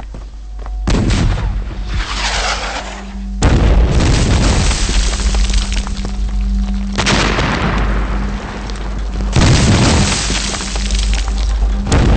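A series of explosions, about five sudden blasts a few seconds apart, each dying away in a rumble, over dramatic background music.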